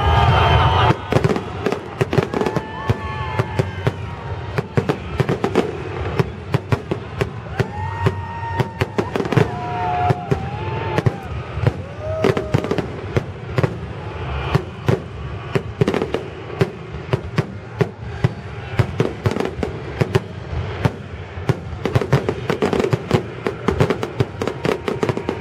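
Fireworks salute: a dense, unbroken run of sharp bangs and crackles, several a second, with music underneath.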